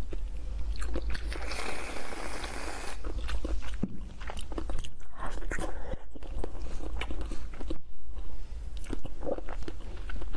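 Close-miked biting and chewing of a green frog-shaped sweet, with many small crunches and wet clicks. A hiss lasting about a second and a half comes about two seconds in.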